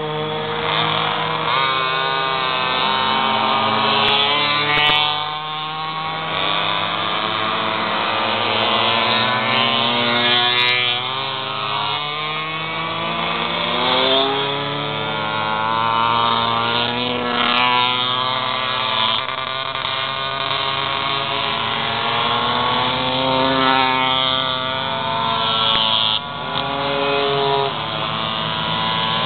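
Several two-stroke pocketbike engines racing, their high buzzing notes overlapping and rising and falling as the bikes accelerate and brake through the corners. One bike passes close about halfway through.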